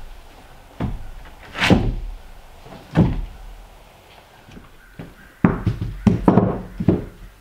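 Irregular knocks and thuds, a handful of separate heavy impacts spread unevenly, the loudest two about a second and a half and three seconds in, then a quicker cluster near the end.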